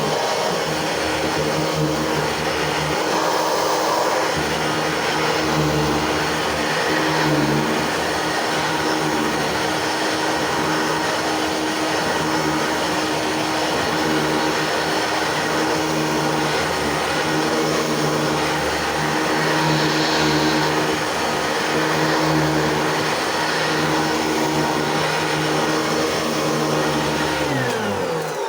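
Singer SST-315 upright vacuum cleaner's 6.2-amp motor running steadily with a whining hum over a rushing airflow; near the end its pitch starts to fall as the motor winds down.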